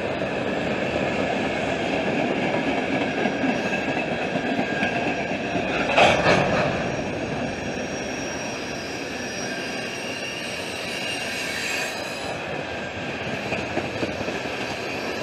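Freight train tank cars and gondolas rolling past, wheels running over the rails with a steady high squeal. There is a brief louder bang about six seconds in.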